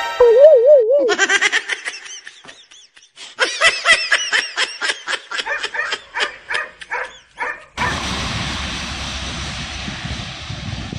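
Edited-in comedy sound effects: a short warbling tone, then a quick run of giggling laughter lasting several seconds that cuts off abruptly. After that comes a steady rushing noise of wind and a distant train.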